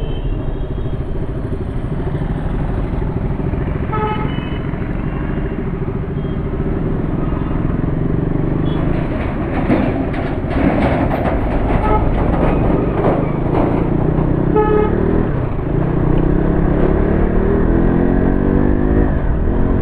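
KTM motorcycle engine running while ridden in traffic, climbing in pitch as it speeds up near the end, with several short horn beeps. The rider suspects a burnt clutch plate, since the bike won't pick up speed.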